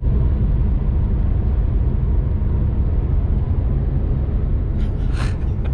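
Steady low rumble of engine and road noise inside a moving car's cabin, with a brief hiss near the end.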